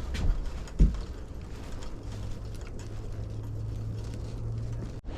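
Bicycle freewheel pawls ticking rapidly as the drivetrain turns, with a thump about a second in and a low steady hum through the second half.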